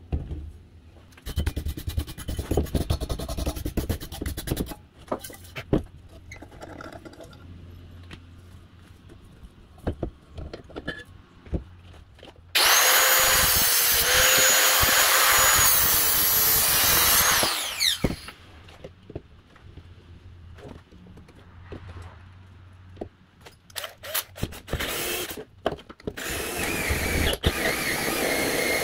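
Corded angle grinder with a thin cutting disc running for about five seconds as it cuts through a clamped metal part of an old blowtorch, steady and high, then winding down with a falling whine. Around it, shorter clattering and handling noises of metal parts being worked on the bench.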